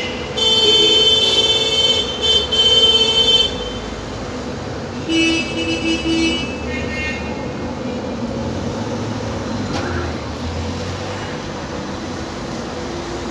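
A vehicle horn sounds for about three seconds, then again about five seconds in as a few short toots, over the steady rumble of street and tram traffic.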